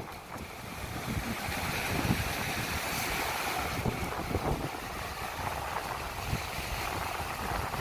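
Wind buffeting the microphone in uneven gusts over the steady wash of ocean surf.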